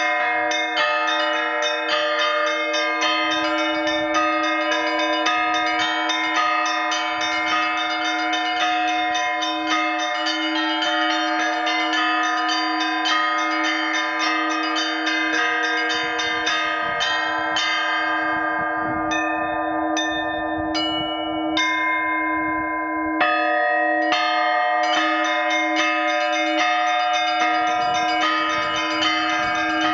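Russian Orthodox church bell ringing (zvon): a ringer plays a set of small bells by ropes in quick, dense patterns over the steady hum of the large bell, a new 120 kg blagovestnik cast at Vladimir Shuvalov's foundry. About two-thirds of the way through the small bells thin out to a few ringing strokes, then the full ringing comes back in with a heavy stroke.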